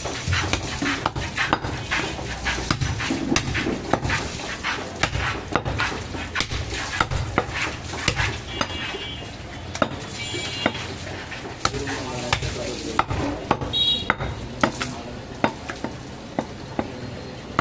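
Butcher's knife slicing goat meat on a wooden chopping block: a run of quick, irregular sharp clicks and taps as the blade cuts through the meat and strikes the block, over a steady low background noise.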